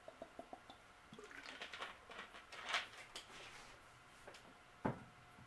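Faint handling noises on a gaming table: a few small clicks, some light rustling, and one sharper tap near the end.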